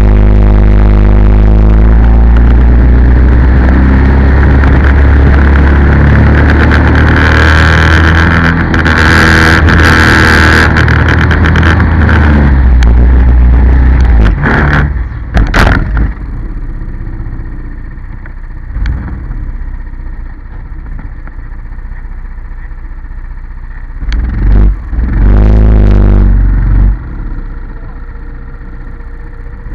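Racing kart engine at speed, recorded onboard: a loud, steady engine note with rushing wind for roughly the first half. The engine then drops off about halfway, stays quieter, picks up loudly again for a few seconds, then eases off near the end.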